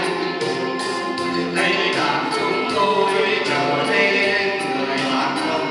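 Men singing together into microphones through a sound system, over music with a steady beat.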